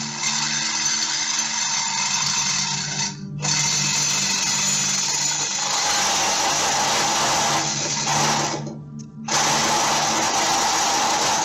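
Power saw running under a jacked-up car, cutting in long steady runs. It stops briefly about three seconds in and again for nearly a second near the end.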